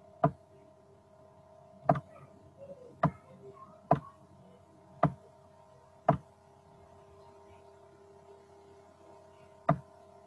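Computer mouse clicking: seven sharp single clicks at irregular intervals, with a longer gap before the last one, over a steady faint electrical hum.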